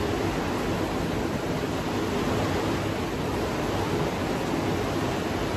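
Heavy rain falling, a steady even rush of noise with no breaks.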